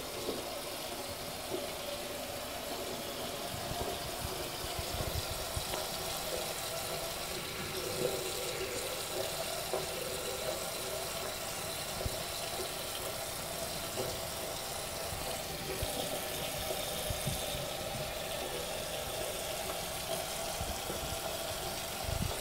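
Bathroom sink tap running a thin, steady stream of water into the drain, with a few faint small knocks along the way.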